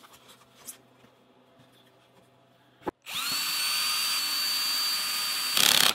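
Faint handling of parts and packing, then about three seconds in a cordless drill/driver spins up and runs at a steady whine, driving a bolt into the gantry's aluminium extrusion. A brief louder burst comes just before it stops.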